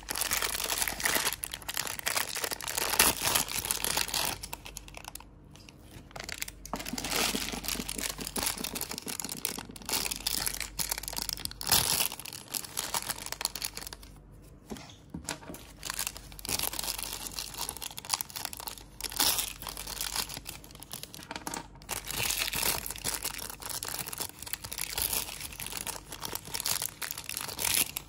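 Pink foil blind-bag wrappers of L.O.L. Surprise pet toys crinkling and tearing as they are pulled open by hand, in irregular bursts with short pauses.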